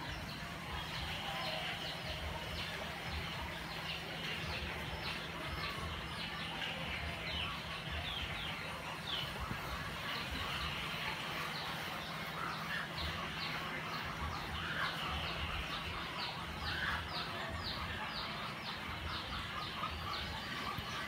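Birds chirping in the background: many short, quick falling chirps, busiest in the second half, over a steady low hum.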